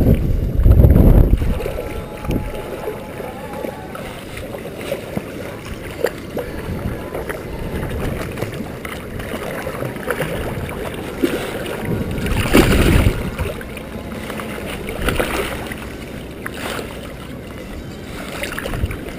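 Water splashing as a hooked brown trout thrashes at the surface during the fight, in several short bursts, the biggest about two thirds of the way through. Wind buffets the microphone, loudest in the first second or so.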